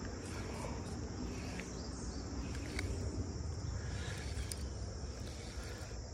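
Creek-side ambience: a steady high insect chorus over a low, even rush of running water, with a few faint clicks.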